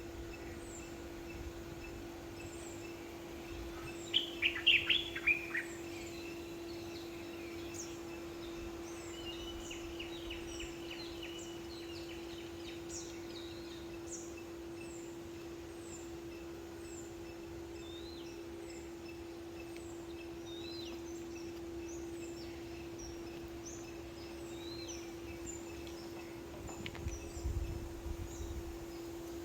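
Several wild birds chirping and calling: short high chirps repeat throughout, with a louder burst of calls about four seconds in and a quick trill around ten seconds. A steady low hum runs underneath.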